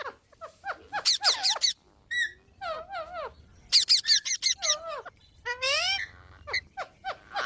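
Pet green parrot giving a series of short, high-pitched squeaky calls with sharp swoops in pitch, coming in quick clusters with brief gaps. The owner takes this calling for the bird crying to be petted.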